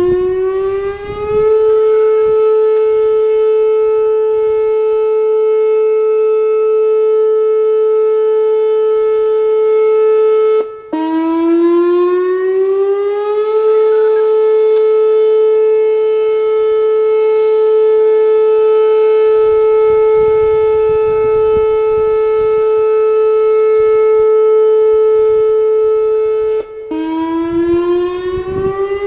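Whelen 2905 electronic outdoor warning siren sounding its steady alert signal during a test. It rises to pitch in the first second or so and holds one steady tone. Twice, about 11 and 27 seconds in, it breaks off briefly and winds back up to pitch over about two seconds.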